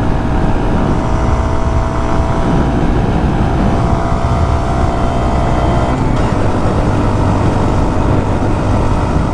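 Honda Monkey 125's single-cylinder engine running at road speed under a low wind rumble; the engine note sags slowly, then shifts about six seconds in.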